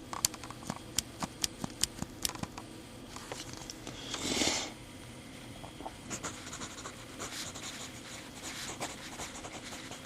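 Pentel PS315 mechanical pencil clicked about ten times in quick succession to advance its lead. Later come fainter scratching ticks and a short breathy rush.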